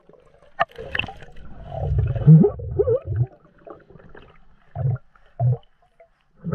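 Water gurgling and swishing picked up by a camera held under the surface, with a couple of sharp knocks in the first second and two short low gurgles near the end.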